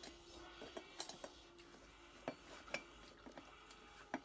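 Faint scattered metallic clinks and taps, about half a dozen, from the cart's metal poles and screws being handled during assembly.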